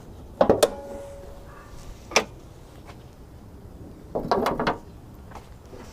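Hood latch and hood of a 2010 Honda Fit being released and opened: a sharp clunk with a brief ring about half a second in, a single click near two seconds, and a short cluster of knocks past four seconds.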